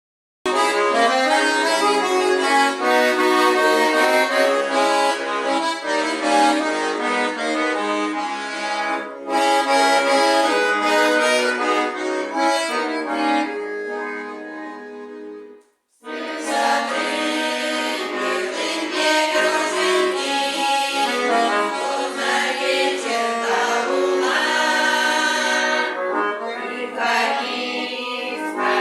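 Accordion playing a folk-style instrumental introduction. About halfway through it fades out to a moment of silence, then starts up again.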